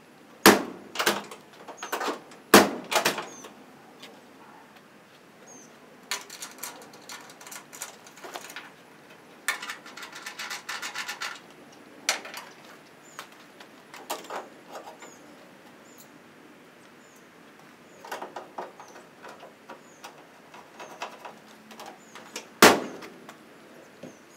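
Hand work on a 1963 Chevrolet C10's door and side trim: a few sharp knocks in the first three seconds, spells of quick rattling clicks in the middle, and one loud knock near the end, when the door gets shut.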